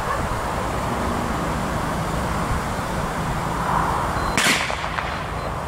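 A single sharp shot about four and a half seconds in, over steady wind noise and low rumble.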